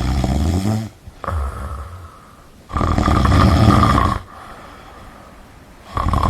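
A cat snoring: rasping breaths repeating every second or two, with quieter pauses between them and the longest, loudest breath in the middle.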